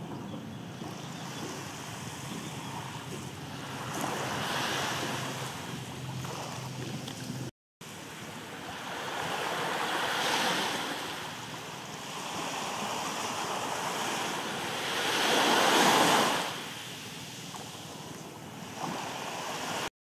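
Small waves washing onto the shore of a coastal lagoon, a steady hiss that swells in surges every few seconds, the loudest near the end, with some wind on the microphone.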